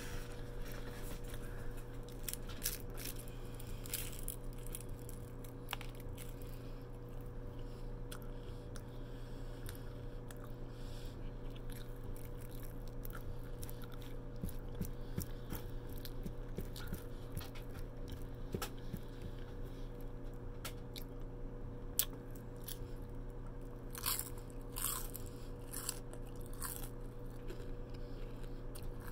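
A person biting and chewing fried lumpia (spring rolls) close to the microphone, with many short mouth and teeth clicks and a run of louder ones near the end, over a steady low hum.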